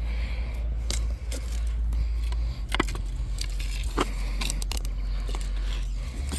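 Cut firewood pieces being handled and set down: scattered light knocks and clicks over a steady low rumble.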